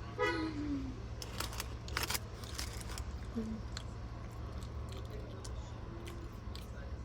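Crunching and chewing of crispy fried food (fries and breaded shrimp), with a cluster of sharp crunches in the first few seconds and softer ones after, over a steady low hum. A short beep sounds right at the start.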